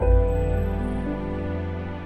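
Soft, slow background music: a held chord with a deep bass note that comes in at the start and slowly fades.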